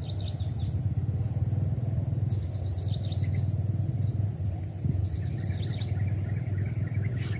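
Small birds chirping in three short bursts of quick high notes, over a steady low rumble and a constant thin high-pitched whine.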